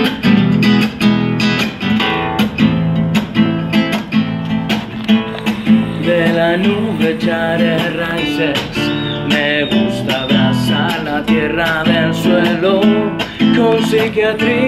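Nylon-string classical guitar strummed in a steady rhythm, with a man's voice singing a melody over it from about six seconds in.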